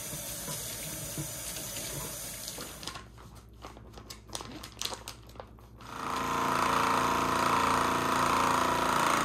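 Kitchen faucet running water over walleye fillets, then plastic bag rustling and clicking. About six seconds in, a countertop vacuum sealer's pump starts and runs steadily, drawing the air out of the bag of fillets; it is the loudest sound.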